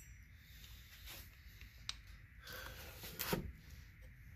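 A few light clicks and knocks of metal transmission parts being handled and fitted by hand, the loudest a short clatter about three seconds in, over a low steady hum.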